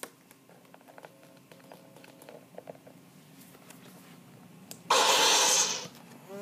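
Prop sword sound effect played from a sound module through a small 1 W amplifier and toy speaker: a loud hissing burst about five seconds in, lasting about a second, after some faint clicks.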